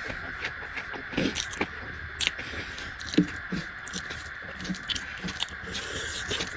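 Close-miked eating: chewing with irregular wet mouth smacks and clicks, over a steady background hiss.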